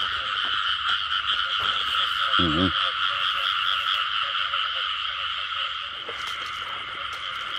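Dense breeding chorus of many frogs calling at once: a steady, unbroken wall of fast pulsing croaks.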